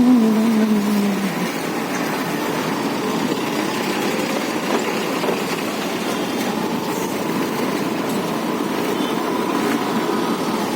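Steady road noise of a scooter ride: engine, tyre and traffic noise as an even hiss-like wash. A held pitched sound dies away in the first second and a half.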